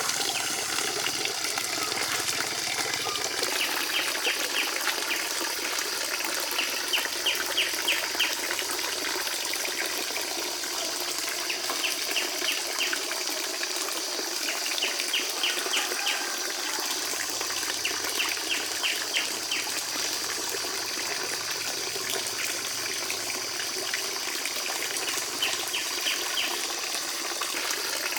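Water running and splashing steadily, as into a pond. Every few seconds a short series of rapid, high chirps repeats, like a small bird's trill.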